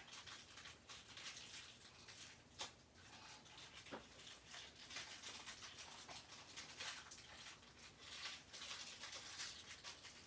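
Faint rustling and crinkling of gift packaging being handled and pulled open, with scattered small clicks and ticks, the sharpest about two and a half seconds in.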